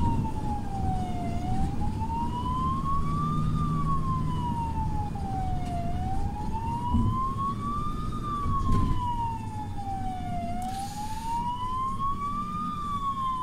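Ambulance's electronic siren in a slow wail, rising and falling about every four and a half seconds, over the rumble of the moving vehicle, heard from inside the cab.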